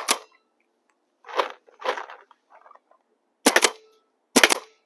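Paintball marker firing at a pressure washer's plastic housing: sharp pops, with quick pairs about three and a half seconds in and again near the end, and softer duller knocks in between.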